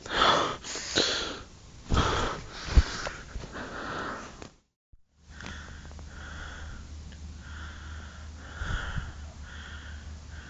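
A person sniffing and breathing right at the microphone, in loud, noisy puffs. After a brief dropout about halfway through, a steady low hum continues with softer, evenly spaced breaths.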